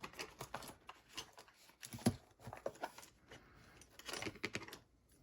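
Clusters of small clicks and scrapes from handling a picked Vachette HDI lock and working its plug with tools, with a single louder knock about two seconds in.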